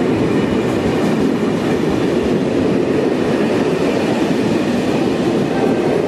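Corail Intercités passenger coaches rolling past close by as the train pulls out of the station: a loud, steady rumble of steel wheels on the rails.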